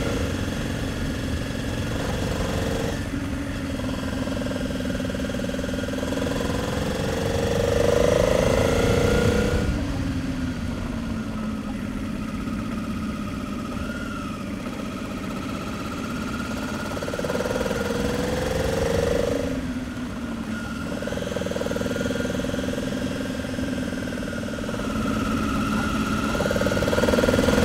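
Motorcycle V-twin engine heard on board while riding, over steady wind noise. Its pitch climbs under throttle and drops back several times.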